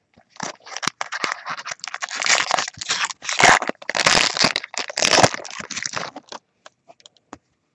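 Foil wrapper of a 2010 Bowman Draft Picks baseball card pack crinkling and tearing as it is handled and ripped open. A run of crackly rustles lasts several seconds, loudest in the middle, and trails off into a few small ticks.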